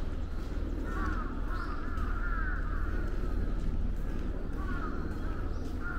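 Crows cawing: a run of short harsh calls about a second in and another near the end, over a steady low rumble.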